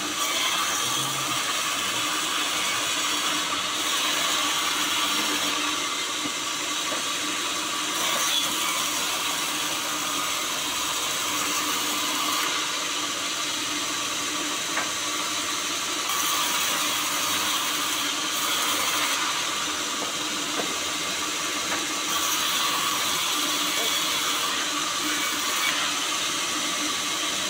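Large vertical sawmill bandsaw running steadily as a sonokeling (Indian rosewood) log is pushed through it by hand. The sound turns harsher and hissier in spells of a few seconds while the blade cuts along the log.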